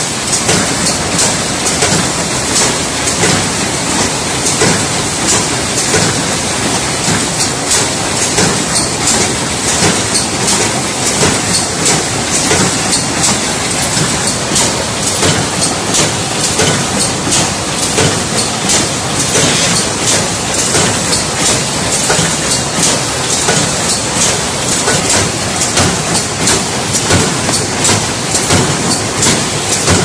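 Packaging line running: the belt conveyors of a checkweigher and the packing machine feeding it make a steady mechanical clatter, with sharp clicks coming several times a second over a constant hiss.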